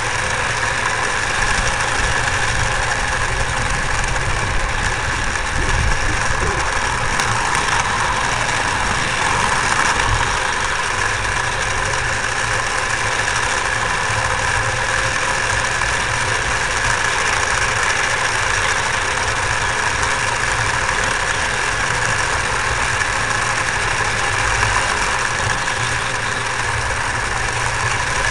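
Steady rumble and hiss of a home-made ride-on miniature steam train running along its track, heard from a camera riding on the train.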